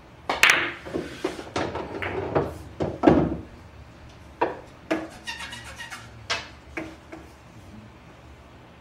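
Pool balls clacking against one another: a quick run of sharp clicks over the first three seconds, then a few single clicks spread out until about seven seconds in.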